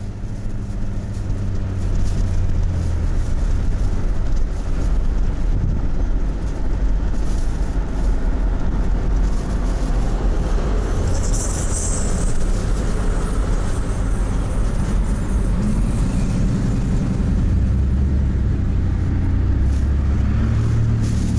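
Steady road and engine noise of a car driving on a freeway, heard from inside the cabin.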